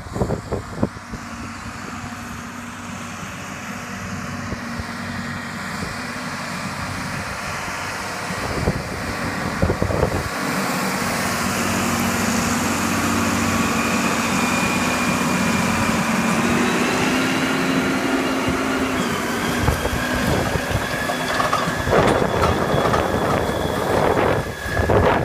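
John Deere four-wheel-drive tractor's diesel engine running steadily under load as it pulls an AerWay aerator and rolling-basket harrow, growing louder as it comes close, with a high whine through the middle. Over the last few seconds the harrow's tines and baskets rattle and scrape through the soil over the engine.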